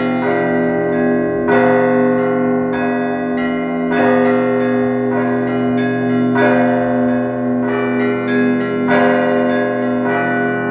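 Russian Orthodox church bells rung together, a peal of several bells. Heavy strokes fall about every two and a half seconds over the long ring of the larger bells, with smaller, higher bells struck in between.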